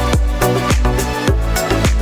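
Background music: an electronic dance track with a steady drum beat and heavy bass.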